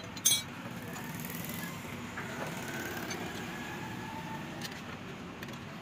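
A single sharp metallic clink just after the start, typical of a tool or engine part being set down, then a steady background murmur of workshop and traffic noise.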